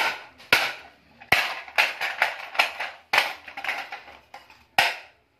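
Hammer blows on a small metal scrap part, about two a second and unevenly spaced, each a sharp clank with a short metallic ring, as the part is knocked apart.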